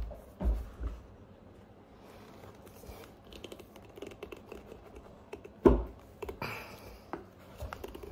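A metal pry tool being worked under a boot's stacked leather heel block: scattered small clicks and scrapes of steel on leather, a few dull knocks at the start and one sharp knock about five and a half seconds in.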